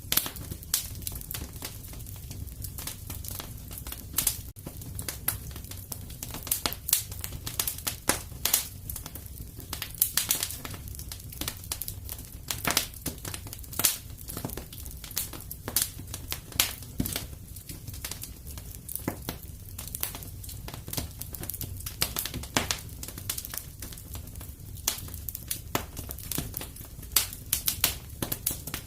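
Fire in a fireplace crackling, with irregular sharp pops several times a second over a low steady rumble.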